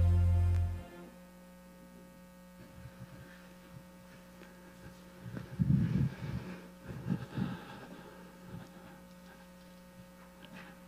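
The last held chord of the band's music dies away in the first second, leaving a steady electrical mains hum from the sound system. Around the middle come a few dull low thumps.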